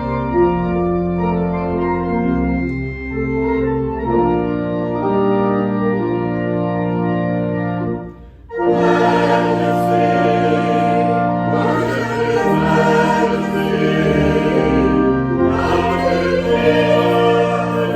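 Church organ playing held chords. About eight seconds in it breaks off briefly, then resumes fuller, with a choir singing over it.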